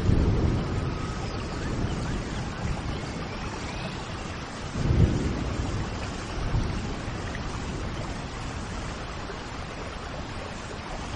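Steady rain falling, with low thunder rumbles at the start and again about five seconds in, and a few faint bird chirps above the rain.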